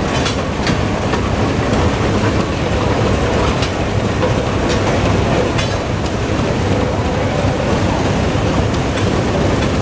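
Steam traction engines running as they move slowly along a gravel road: a steady, dense rumble with scattered clicks and knocks.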